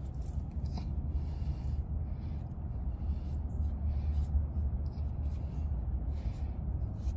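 Irregular short rustles and scuffs of a rag wiping oil residue off a metal part, over a steady low rumble.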